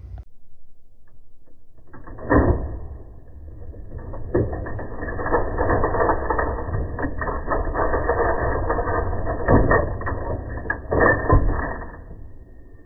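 National Model 1500 cash register's printer mechanism cycling, heard slowed down in slow-motion playback: a dense mechanical clatter of gears and ratcheting with several heavy clunks, starting about two seconds in and stopping near the end.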